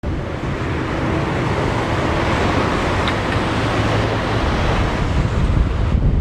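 Strong wind gusting against the microphone, mixed with the steady noise of a Boeing 737-800's jet engines on approach.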